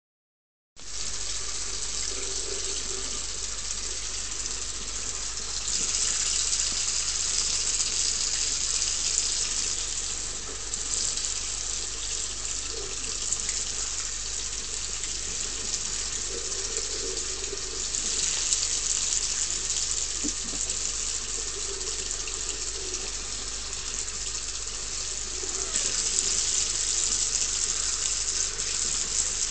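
Faucet running a thin stream of water into a small ceramic sink, a steady splashing hiss that swells louder three times for a few seconds each. The stream falls on a cat drinking from it.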